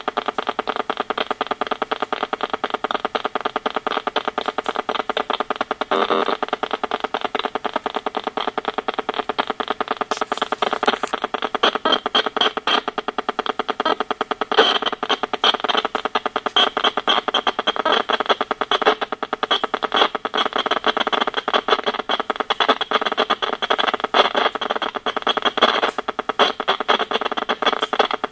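An EMFields Acoustimeter RF meter's speaker turning Wi-Fi radiation from an iPad and wireless router into sound: a steady, rapid clicking buzz. Irregular louder bursts break through several times, the iPad's own transmissions as it loads web pages.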